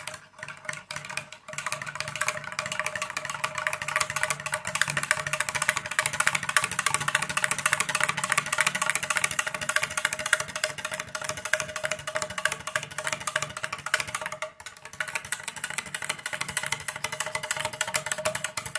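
Wire balloon whisk beating yogurt with spices and a little water in a ceramic bowl: rapid, steady clicking and scraping of the wires against the bowl, with one brief pause a little over halfway through.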